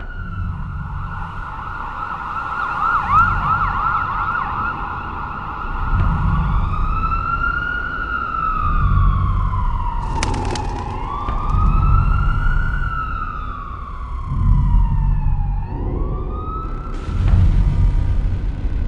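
Emergency-vehicle siren. It holds a steady high tone for the first few seconds, then wails slowly up and down, about one rise and fall every five seconds, over repeated deep low thuds.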